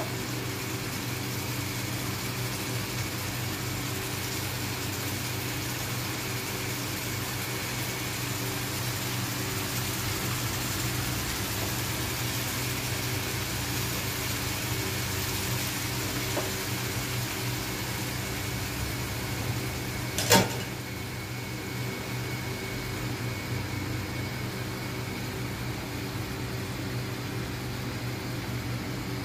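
Steady machine hum with an even hiss over it. One sharp click comes about twenty seconds in, after which the hiss is quieter.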